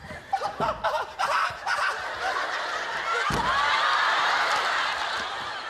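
A studio audience laughing, the laughter swelling about two seconds in and strongest around four seconds. A dull thump sounds a little past three seconds.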